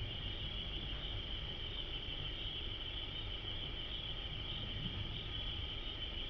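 Insects chirring in a steady high-pitched chorus, with a low rumble underneath.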